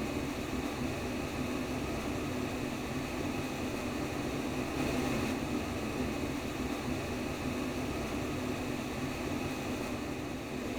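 Simulated womb sound: a steady, even rushing noise, strongest in a low hum-like band, with no breaks.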